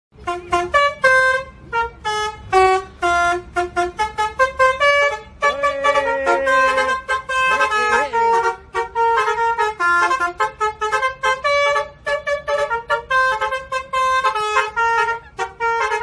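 Telolet bus horn (Basuri multi-tone horn) playing a fast melody of short, bright notes, with a held lower note about six seconds in. A low rumble runs beneath the first half.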